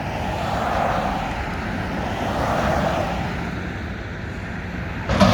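Mack McNeilus front-loader garbage truck's diesel engine running under load, swelling and easing as it works the hydraulic lift, with a sharp bang about five seconds in.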